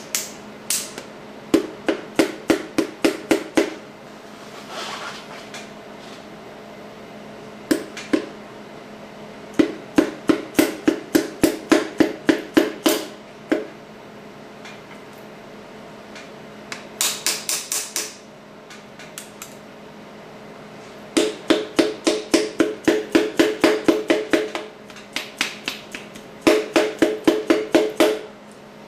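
Rubber hammer tapping a forged piston down through a ring-compressor tool into the cylinder bore, in quick runs of light taps about four or five a second. Each tap gives a short metallic ring. Short pauses come between runs, and there is one hissier scraping burst a little past halfway. The rings are being eased past the top of the bore.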